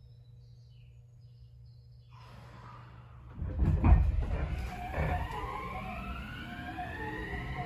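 Electric commuter train pulling away, heard from inside the car: a loud clunk and rumble as it starts to move about three and a half seconds in, then the traction motors' whine climbing in pitch, several tones together, as it accelerates.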